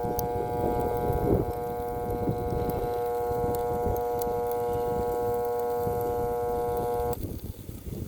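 Dirt Devil Powermax Pet vacuum motor straining with a steady buzzing hum like a transformer, then cutting out abruptly about seven seconds in, which the owners take for the motor's overload protection tripping.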